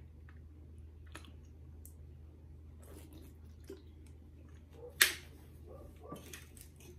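Faint chewing and small mouth clicks, with one sharp click about five seconds in.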